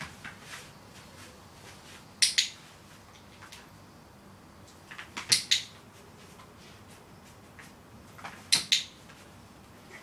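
Dog-training clicker pressed three times, about three seconds apart. Each press gives a sharp double click.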